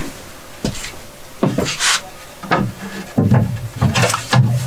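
Primed wooden shiplap board being handled and test-fitted against the ceiling framing: a string of irregular knocks, bumps and short scrapes of wood on wood, with heavier thuds in the second half.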